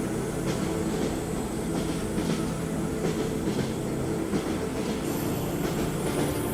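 Train wheels clicking over rail joints on a moving train, with a steady rumble underneath and irregular clicks every half second or so.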